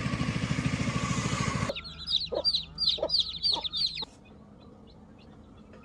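Chicks peeping: a quick run of high, downward-sliding cheeps with a few lower notes among them, stopping about four seconds in. Before them, a dense buzzing noise with a fast low pulse cuts off suddenly.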